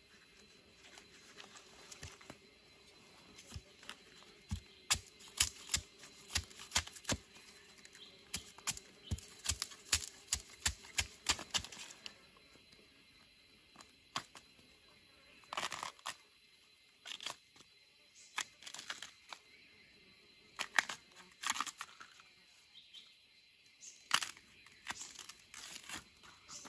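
Dry forest litter and plant stems crackling and snapping as they are handled or trodden: a dense run of sharp snaps through the first half, then scattered snaps and rustles.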